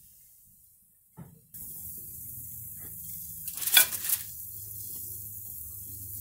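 A thick steak sizzling steadily on a gas grill's grate. About three and a half seconds in comes a brief, louder burst of clatter and sizzle as metal tongs work the steak on the grate.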